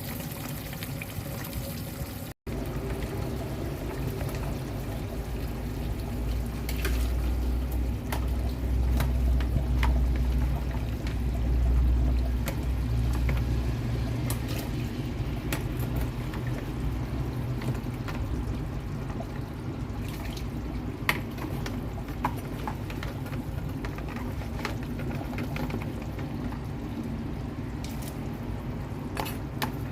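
Meat and stock being poured into a pot of banga (palm-nut) soup, with liquid sloshing and occasional sharp clinks of utensils against the pot.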